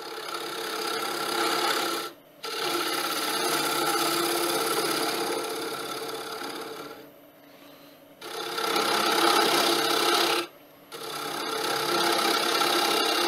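Carbide-tipped hollowing tool scraping the inside of a spinning wooden bowl on a wood lathe, taking off shavings with a rasping hiss. There are four passes, broken by short pauses at about two seconds, around seven to eight seconds and about ten and a half seconds in.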